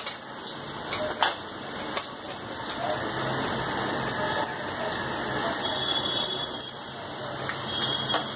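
Sliced onions sizzling in hot ghee in a pressure cooker: a steady frying hiss. A few sharp metal clinks sound over it, about a second in, at two seconds and near the end.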